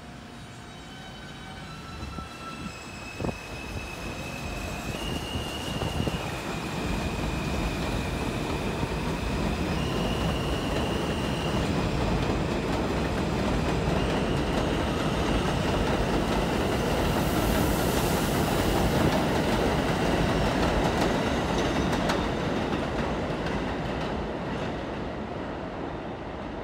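R160B subway train with Alstom propulsion running past on an elevated track. A high motor whine steps between pitches early on, and wheels click over the rail joints. The wheel-and-rail rumble builds to its loudest about two-thirds of the way through, then fades as the train pulls away.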